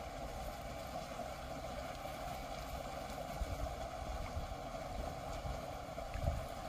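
Steady outdoor background noise with a constant hiss-like hum, and a brief gust of wind on the microphone near the end.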